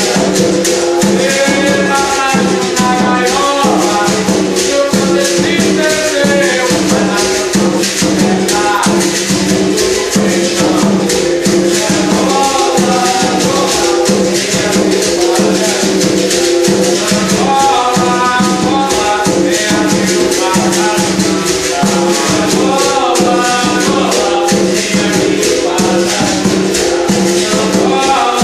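Capoeira angola music: a berimbau with its caxixi shaker rattling in a quick steady rhythm over an atabaque drum, with a voice singing in phrases that come and go.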